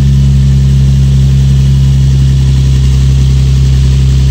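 Nissan 350Z's 3.5-litre V6 idling steadily with a freshly installed plenum spacer, with no vacuum-leak hiss to be heard.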